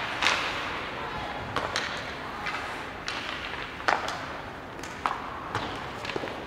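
Ice hockey play: sharp clacks of sticks and puck at irregular intervals, the loudest about four seconds in, over a steady hiss of skates and rink noise.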